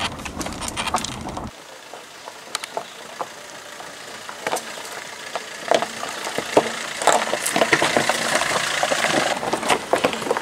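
Maruti Suzuki S-Cross diesel crossover crawling over a rocky dirt track: tyres crunching and popping on loose stones, with the engine running low underneath. The crunching grows louder about six seconds in as the car passes close by. A low rumble at the very start cuts off after about a second and a half.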